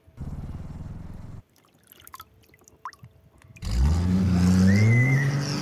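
Car engine: a short steady low hum, then about three and a half seconds in a loud rev whose pitch climbs quickly and then holds.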